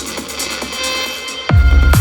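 Techno in a short breakdown: the kick drum and bass drop out, leaving held synth tones. About three-quarters of the way through, the pounding kick and bass come back in at a steady four-on-the-floor pulse of roughly two beats a second.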